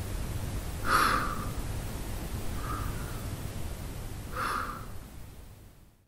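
A man breathing slowly through his mouth while resting, with softer breaths alternating with louder ones that come about a second and four and a half seconds in. A low hum runs underneath, and it all fades out near the end.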